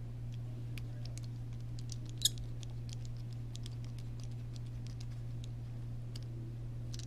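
Light clicks and taps of tiny metal ball studs and plastic suspension parts being handled and fitted, with one sharper click about two seconds in, over a steady low hum.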